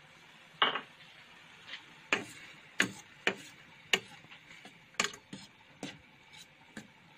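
Metal slotted spoon clinking and scraping against a stainless steel frying pan while stirring ground beef and garlic: about ten sharp, irregular knocks.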